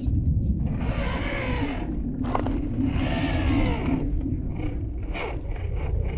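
MN78 RC crawler's small electric motor and gear drivetrain whining in two revving bursts as it is driven through brush, with a brief sharp click between them, over a steady low rumble.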